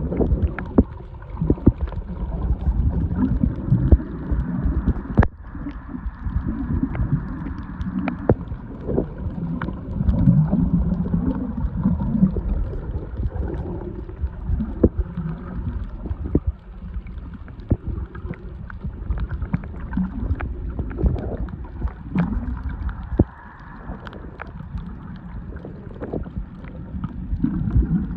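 Muffled underwater rumble and surge of moving water, heard through a camera held underwater on a reef, swelling and easing, with scattered sharp clicks throughout.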